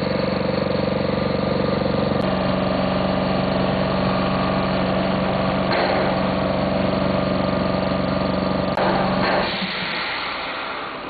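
Isomec rail-vehicle air compressor running on a test bench: a steady mechanical hum whose pitch steps up about two seconds in. Near the end the deep part of the hum drops away and the sound gets quieter.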